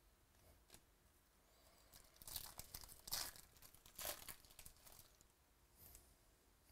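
Foil wrapper of a Bowman baseball card pack being torn open and crinkled by hand, in a few short rips between about two and four seconds in.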